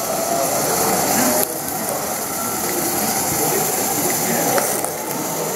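Live-steam model locomotive running slowly on its track, with a steady hiss of steam.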